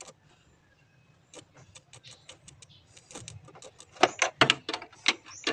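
A run of short, irregular clicks and snaps: a metal cable tapped against a car battery terminal in a spark test, the loudest strikes a few seconds in. The sparks are very weak, a sign of a flat battery.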